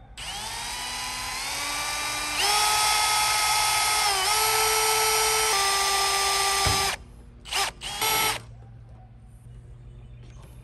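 Electric drill with a 5/32 bit drilling into the plastic spoiler retaining clips in a car's trunk lid. The motor whine rises in pitch as it spins up, gets louder about two and a half seconds in, sags briefly as the bit loads, and stops about seven seconds in, followed by two short bursts of the drill.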